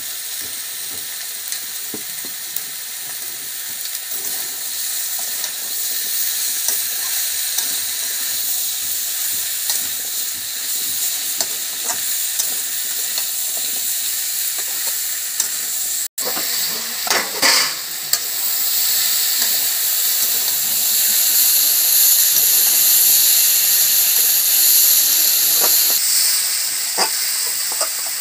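Pumpkin pieces sizzling in hot oil in a wok while a spatula stirs them, with a few scrapes of the spatula on the pan. This is the dry sauté of the spiced pumpkin before water goes in. The sound cuts out for an instant about halfway, after which the sizzling is louder.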